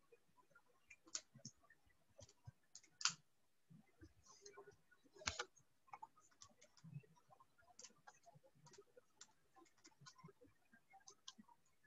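Faint, irregular key clicks, of keys being pressed one at a time while a number is worked out, a few louder ones about one, three and five seconds in.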